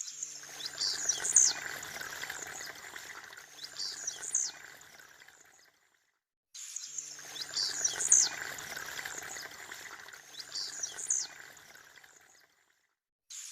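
Blue-black grassquit singing its short, sharp song phrase four times, spaced a few seconds apart, over a steady background hiss. The sound cuts out completely twice for under a second.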